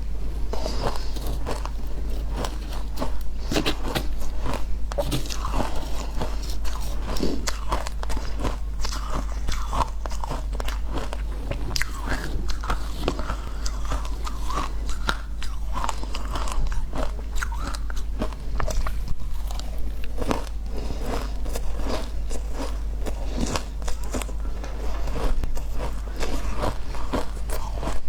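Frozen ice being bitten and chewed: a dense, continuous run of sharp crunches.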